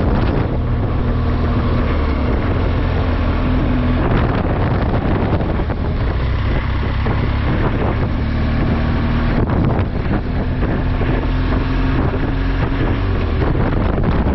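Engine of a moving vehicle running steadily, mixed with heavy wind noise on the microphone.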